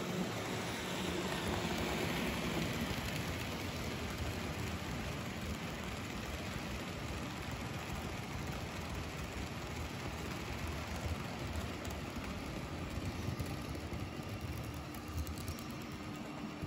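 N-scale model train running on its loop of track: a steady whir of the locomotive's small motor and the wheels rolling on the rails, with a few light clicks in the last few seconds.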